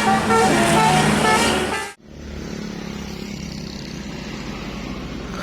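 A bus's multi-tone telolet horn plays a fast stepped melody. About two seconds in it cuts off abruptly, and a quieter steady engine hum of a bus running follows.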